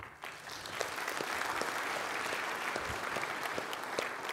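Audience applauding, starting suddenly and building to a steady clapping within the first second.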